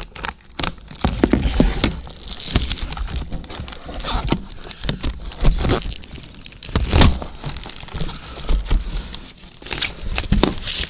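Plastic packaging crinkling and cardboard rustling as the packing in a shipping box is handled, with irregular crackles and small knocks throughout.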